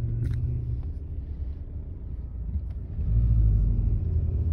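Car engine and road rumble heard from inside a slowly moving car, a steady low hum that grows louder about three seconds in.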